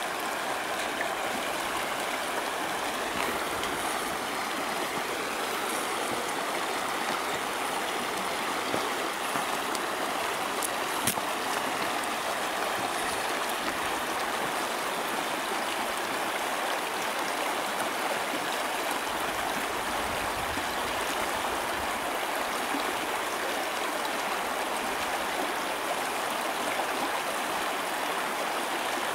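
Shallow river running fast over rocks: a steady, even rush of water, with a single click about eleven seconds in.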